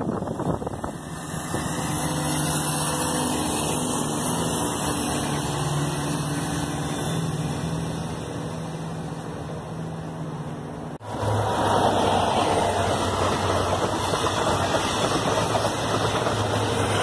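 A diesel multiple unit passing with a steady engine tone. About eleven seconds in, a sudden cut to Network Rail's yellow New Measurement Train, an HST set, rolling past louder, with a steady low hum under the rumble of its wheels on the rails.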